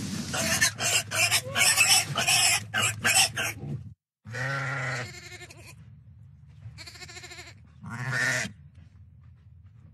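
A run of rough clicking and rustling noises for the first few seconds, then barn livestock bleating: three separate calls, at about four, seven and eight seconds in.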